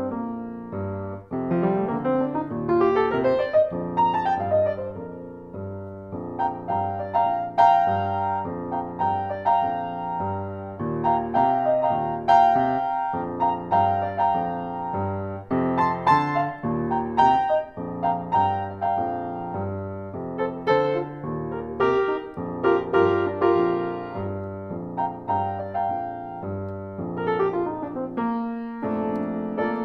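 Solo piano playing a boogie-woogie piece in B-flat major: a steady repeating bass line under chords and melody. There is a quick run up the keyboard a few seconds in and a run down near the end.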